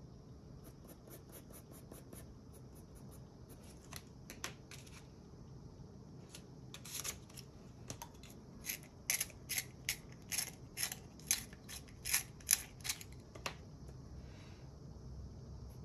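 A colored pencil being sharpened in a small handheld sharpener: a run of short, sharp scraping strokes about two a second, loudest in the second half, as the blade shaves the wood and core. Faint pencil strokes on paper come before it.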